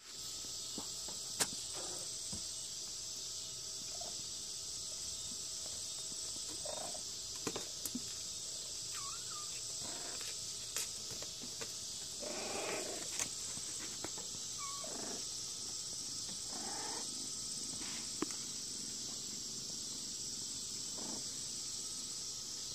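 Kittens clambering over paperback books on a shelf: scattered light knocks, scratches and rustles of paper, with a few brief faint mews, over a steady high hiss.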